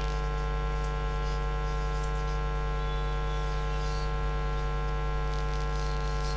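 Steady electrical mains hum, a low buzz with a row of higher steady tones above it. Faint light squeaks of a marker writing on a whiteboard come through now and then.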